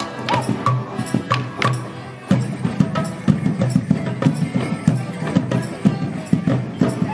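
Morris band of melodeons and a drum playing a traditional dance tune, with sharp wooden clacks of the dancers' sticks striking together. The music grows fuller about two seconds in.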